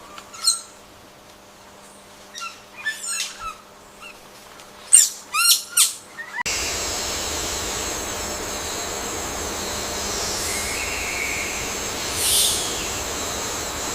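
A few short bird calls, some in quick pairs or runs of sweeping notes. About halfway through the sound cuts abruptly to a steady forest background hiss with a faint call or two over it.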